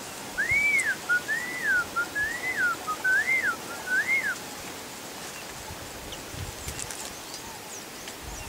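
A bird singing a series of five clear whistled notes, each rising and then falling in pitch, over about four seconds. A few faint, high chirps follow near the end.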